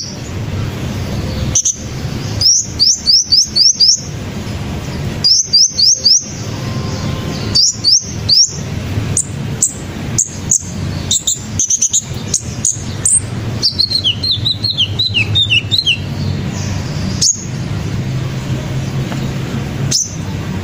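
Wild sunbirds chirping in the trees: high, thin, quick chirps in runs of four or five. About two-thirds of the way through comes a run of lower notes falling in pitch. A steady low rumble runs underneath.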